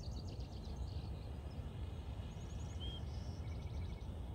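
Faint bird chirps, quick series of short high notes and one brief whistled note about three seconds in, over a steady low outdoor rumble.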